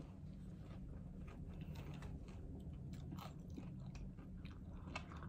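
Faint chewing and small clicking mouth sounds of a person eating with her hands, over a steady low hum.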